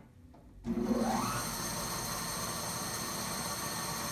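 Freshly restored Canadian Blower & Forge No. 15 floor drill press powered up: its electric motor comes on suddenly under a second in with a quick rising whine as it spins up, then runs steadily, driving the belt and spindle. The owner judges that it sounds good.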